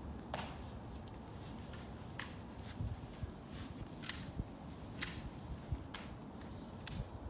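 A string of sharp clicks, one every second or so, from a Tomb sentinel's metal-plated shoe heels as he marches on the plaza. Beneath them runs the low steady murmur of a hushed outdoor crowd.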